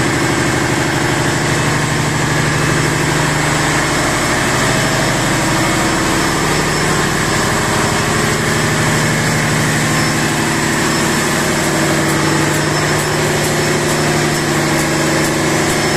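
Steady, loud drone of a ship's engine-room machinery running, with a constant low hum and no change throughout.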